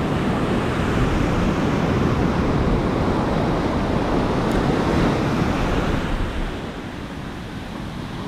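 Ocean surf breaking and washing up the beach, with wind on the microphone; the wash eases about six seconds in.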